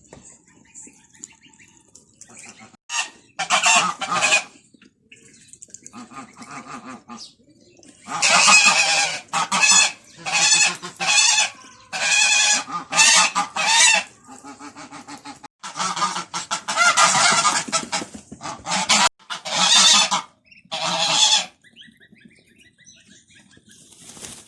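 Domestic geese honking loudly and over and over, a long run of harsh calls with short gaps that dies down near the end.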